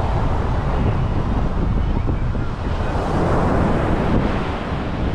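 Surf washing onto the beach with wind buffeting the microphone in a steady low rumble; the surf swells louder about three seconds in.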